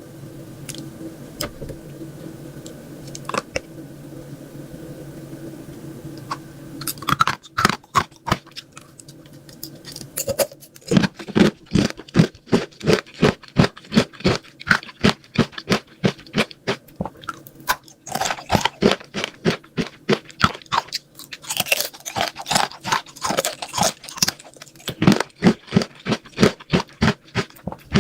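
Close-miked chewing and crunching of sweets in a mukbang, a crisp crunch about three times a second in a steady rhythm. It starts about seven seconds in, after a few faint clicks over a low hum.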